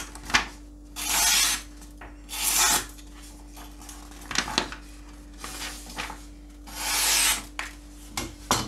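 A sheet of paper being sliced with a Japanese nakiri kitchen knife, a sharpness test of the edge after heavy use. There are three hissing, rasping cuts, at about one, two and a half and seven seconds in, with light paper crackles and taps in between.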